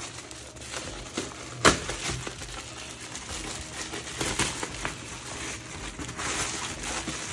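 Plastic mailer bag and packaging crinkling and rustling as they are handled, with scattered small clicks and one sharp snap about a second and a half in.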